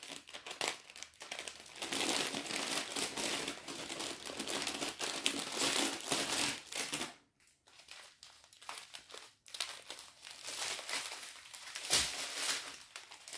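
Plastic packaging crinkling as a strip of sealed plastic bags of diamond-painting drills is handled, with a quieter pause midway and a sharp tap near the end.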